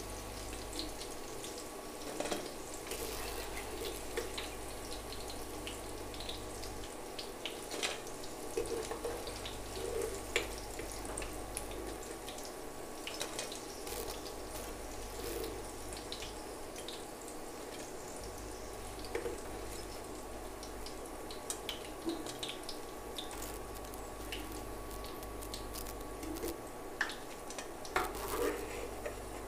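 Battered chilli fritters deep-frying in hot oil in a kadai: a steady sizzle and bubbling with scattered crackles, and now and then the clink of a metal slotted spoon against the pan. Under it a low hum cuts in and out every few seconds.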